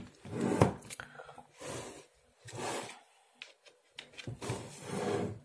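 A large plastic tub full of vitamin tablets being handled by hand: several short rustling, scraping noises against the plastic, with a few sharp clicks.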